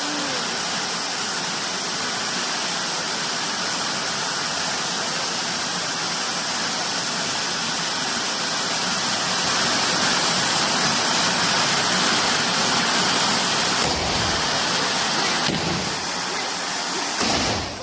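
Several hand-held bamboo tube fireworks (tezutsu hanabi) burning at once: a loud, steady rushing hiss of spraying gunpowder, a little louder past the middle. In the last few seconds come low bangs as the tubes' bottoms blow out one after another at the finish (the hane), and the hiss cuts off.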